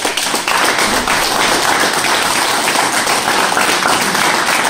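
A group of people applauding, many hands clapping at once.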